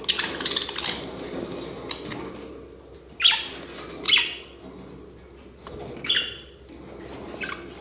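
Parrots chirping: about six short, sharp calls spaced a second or two apart, the loudest about three and four seconds in.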